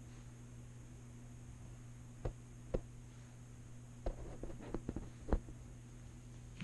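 A steady low hum with scattered light knocks and clicks: two single knocks, then a quick run of them between about four and five and a half seconds in.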